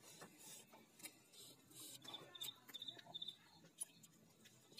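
Near silence, with a cricket chirping a few short pulsed trills from about two seconds in, and faint scattered clicks of fingers on steel plates of rice.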